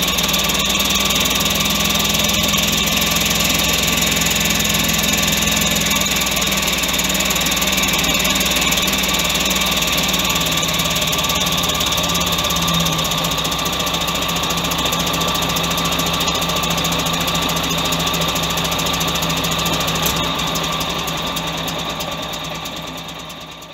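Rolls-Royce B6 4.2-litre straight-six engine of a 1953 Daimler Ferret armoured car running steadily at idle. It is running rich after years in storage, with perished carburettor diaphragms letting petrol pool into the manifold. The sound fades away near the end.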